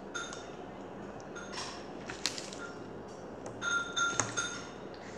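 A few light taps and clinks of tableware on a table. Several of them ring briefly, and the clearest cluster of two or three comes about four seconds in.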